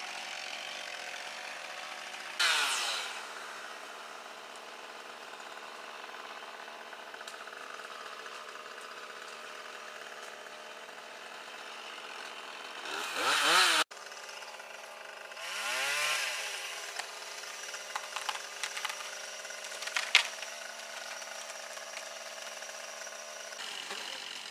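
Two-stroke chainsaw idling with a steady hum, revved up briefly about two and a half seconds in, again just before 14 seconds and around 16 seconds, with a few short clicks later on.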